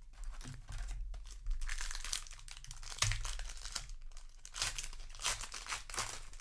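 A plastic booster-pack wrapper crinkling and tearing as it is handled and opened, in irregular crackling bursts.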